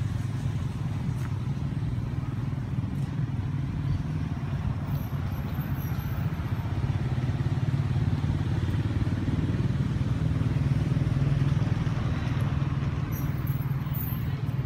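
A steady low engine drone from a motor vehicle, growing somewhat louder past the middle and easing off near the end.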